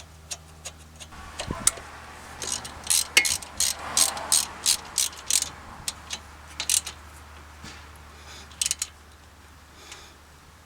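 Socket ratchet clicking in quick runs, about four clicks a second, then a few short strokes later, as the 12 mm bolt holding the brake line and ABS sensor wire bracket to the strut is run in.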